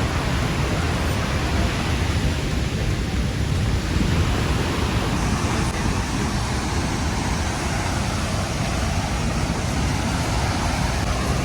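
Steady, unbroken rush of Murchison Falls, the Nile's water pouring through the falls, heaviest in the low end.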